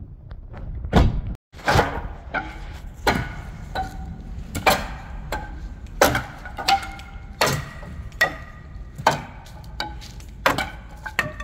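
Steady series of hammer blows, about one and a half a second, each with a short ring, as the old wooden deck railing is knocked apart for demolition.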